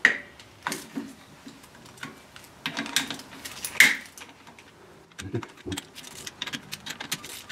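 Hand socket wrench clicking and small metal tool taps as the spring bolts of a motorcycle clutch pressure plate are loosened one after another; a few sharper clicks stand out, and the clicks come quickly near the end.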